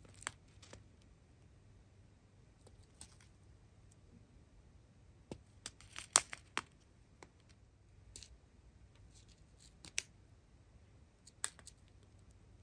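Faint, scattered crinkles and clicks of thin plastic bags of resin diamond-painting drills being handled, with a quick cluster about six seconds in and sharper single clicks near ten and eleven seconds.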